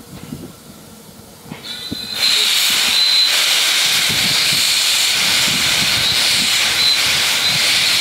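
Quarry Hunslet 0-4-0T steam locomotive moving off with its cylinder drain cocks open, blowing steam: a loud steady hiss with a thin high whistle in it, starting about two seconds in.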